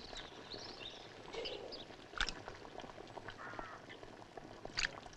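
Faint duck quacks and other short bird calls, with a couple of light knocks.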